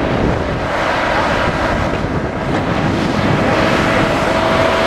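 Engine and hydraulics of a Madill 2250 tracked logging machine running steadily as it works, with a steady whine over a rough rumble.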